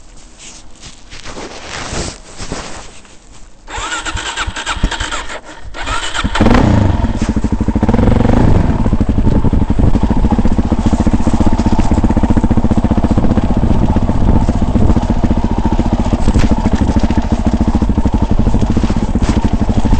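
Clicks and handling noises, then a starter whirs for about two seconds. The off-road vehicle's engine catches about six seconds in and settles into steady running.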